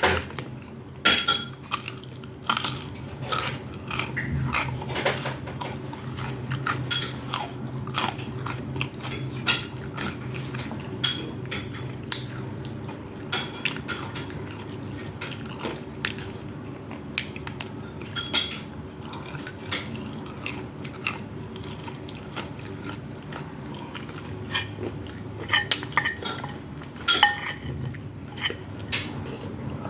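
Eating sounds close to the microphone: utensils clicking and clinking against a plate, with chewing and biting of rice and fried chicken, over a steady low hum.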